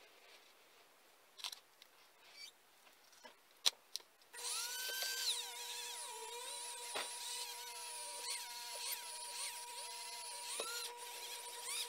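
A small handheld rotary power tool starts up about four seconds in and runs with a steady whine, its pitch wavering as it works on the motorcycle cylinder head. Before that, light clicks of metal parts being handled.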